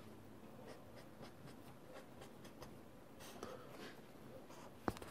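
Marker pen scratching on paper in short, faint strokes as a diagram is drawn, with a single sharp tap near the end.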